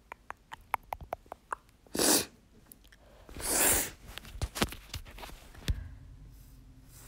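Quick light taps of fingertips patting the skin of the face, about five a second, with a few scattered taps later. About two seconds in, and again at about three and a half seconds for longer, there is a loud breathy burst of hissing noise.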